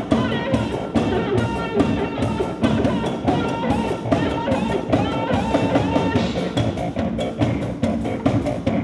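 Loud live electronic music played on homemade electronic instruments, with a fast, busy percussive beat under pitched synthesizer tones.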